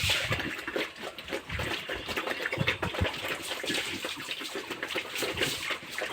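Pigs in a pen with wet splashing and sloshing, and irregular short smacks and clicks throughout.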